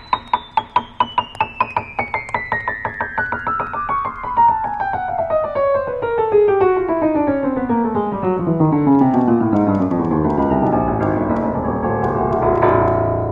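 Upright piano played in a long, fast run of notes descending steadily from the high treble down to the bass, with a low chord struck and left ringing near the end.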